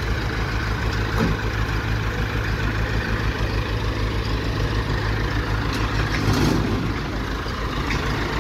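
The engine of a sewer-jetting truck runs as the truck drives slowly past. It makes a steady, low, evenly pulsing rumble.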